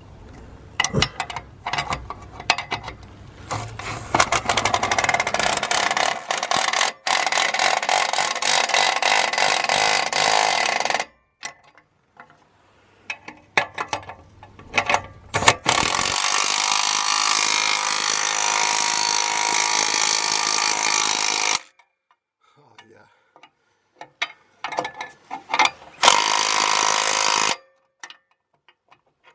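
A power wrench running in three long bursts of rapid clicking, doing up the bolts on a car exhaust's midsection; each burst stops abruptly, with scattered clicks and knocks of metal between.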